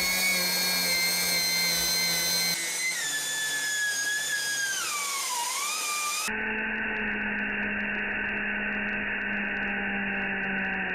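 Small gas turbine driving a 3D-printed blender rotor, a high steady whine that sags in pitch and recovers as a cucumber is pushed into the spinning blades. About six seconds in it changes abruptly to a duller, lower steady whine.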